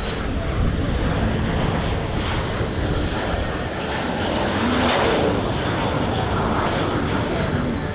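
Large air tanker's engines passing low on a firefighting run, the sound building to its loudest about five seconds in and then easing.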